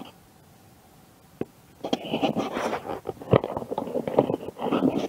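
Handling noise from a head-mounted action camera being moved: one click about a second and a half in, then close rustling and scraping with several knocks for the last three seconds.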